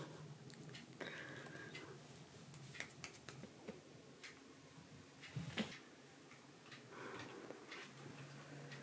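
Light scattered taps and clicks of kittens moving and playing on furniture and mats, over quiet room tone with a faint low hum. One sharper knock comes about five and a half seconds in.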